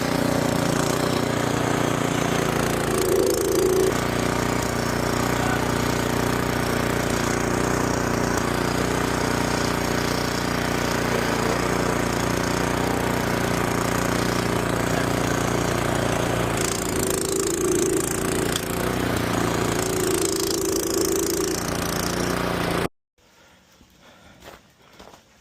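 Gas snowblower engine running steadily under load, its note swelling briefly a few times, then cutting off abruptly near the end.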